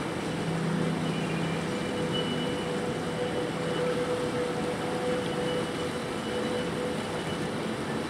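Shallow river running fast over a gravel riffle: a steady rush of flowing water. Faint held tones of ambient music sit under it.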